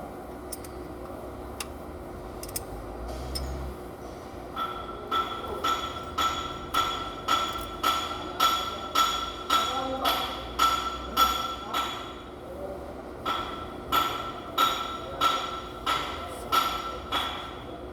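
A hammer striking metal in a steady rhythm, about two blows a second, each blow ringing. The hammering pauses briefly after about a dozen blows, then resumes for several more.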